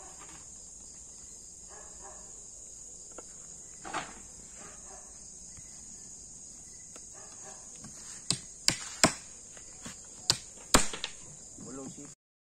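Steady high chirring of a night cricket chorus, with a handful of sharp knocks about two-thirds of the way in. The sound cuts off abruptly near the end.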